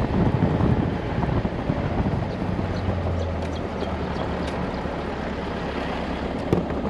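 Mitsubishi 4WD driving along a gravel track: steady engine hum with tyre and body rumble and some wind noise. A single knock, likely a bump, comes near the end.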